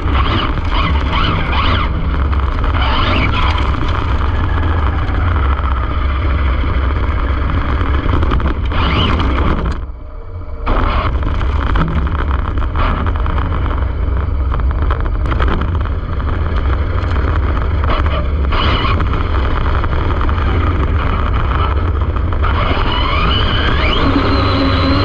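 Onboard sound of an Arrma Infraction 6S RC car running hard: the brushless motor and drivetrain whine rises and falls in pitch with the throttle over a heavy rumble of tyres and wind. The sound drops off briefly about ten seconds in, then picks up again.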